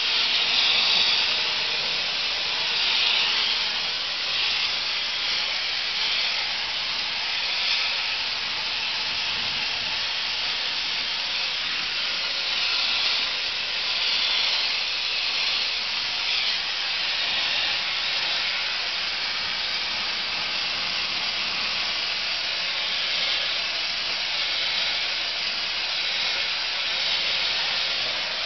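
Corn cob media blaster running: a steady hiss of compressed air driving ground corn cob grit out of the nozzle against log walls to strip their surface, with small swells in level.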